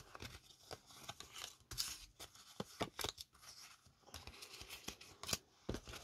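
Oracle cards being dealt onto a wooden table: a string of irregular soft clicks, slides and rustles as cards are put down and pushed into place.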